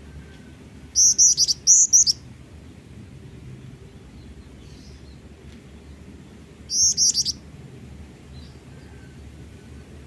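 A black-winged flycatcher-shrike (jingjing batu) singing two short, loud bursts of rapid high-pitched notes, one about a second in and another past the middle.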